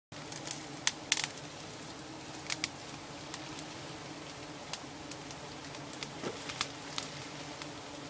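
Scattered sharp snaps and clicks of twigs and leafy branches being handled and brushed, about a dozen through the stretch, over a steady low hum.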